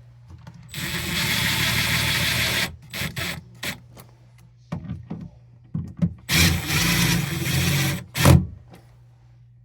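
Power drill driving in the GFCI receptacle's mounting screws: two steady runs of about two seconds each, with short clicks and scrapes between and a sharp knock near the end.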